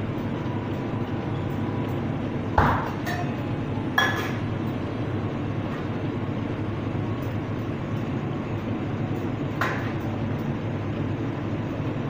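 Steady low hum with three sharp clinks of cups and metal being handled at an espresso machine: about two and a half seconds in, at four seconds, and near ten seconds.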